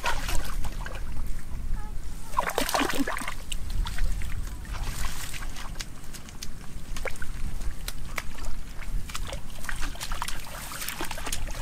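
Hands squelching and splashing in wet mud and shallow water while groping for fish, a run of irregular small splashes and wet clicks over a steady low rumble.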